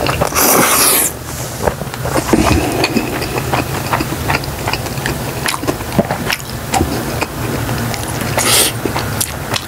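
Close-miked slurping of jjajangmyeon noodles about half a second in, then chewing with many small wet mouth clicks, and another short slurp near the end.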